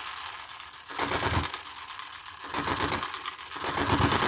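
Enjomor single-cylinder hit-and-miss model engine running, a fast steady clatter of its valve gear and mechanism with louder firing strokes about every second to second and a half. It is kept firing with a finger on the governor linkage, as the governor still needs adjusting.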